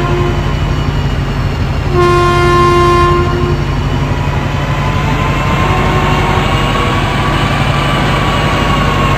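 A train horn sounds once, about two seconds in, for about a second and a half, over the steady rumble of a moving train.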